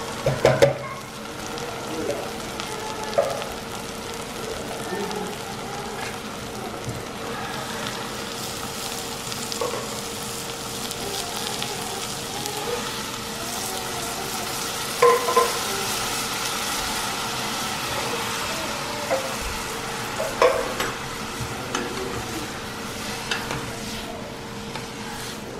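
Steady sizzle of food frying in hot fat, over a steady hum. A spoon and a can clink against a saucepan now and then as canned sweet peas go in and are stirred.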